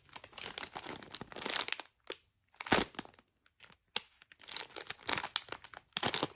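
Plastic packaging bag of a squishy crinkling as it is handled and turned over, in irregular bursts with short pauses and one louder crackle just under three seconds in.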